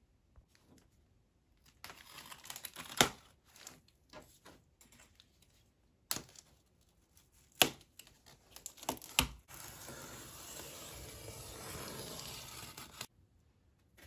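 Cardboard being handled on a wooden table: rustling and several sharp knocks, then a steady scraping noise lasting about three seconds that stops abruptly.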